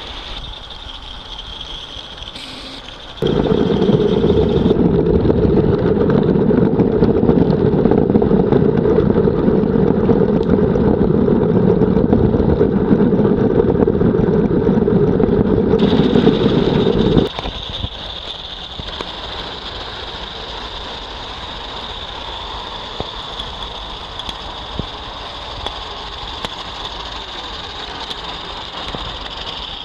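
Garden-scale live steam locomotives running on outdoor track, with light clicks. A loud, steady rushing noise starts abruptly about three seconds in and cuts off about fourteen seconds later.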